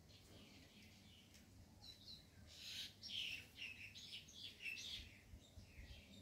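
Faint bird chirping: a quick series of short, high notes lasting about three seconds, thinning out near the end.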